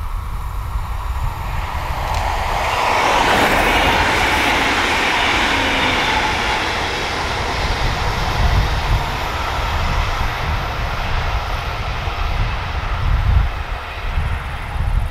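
ODEG Stadler KISS double-deck electric multiple unit passing at speed, its rolling and rushing noise loudest a few seconds in with a falling pitch as it goes by, then slowly fading as it runs away along the line.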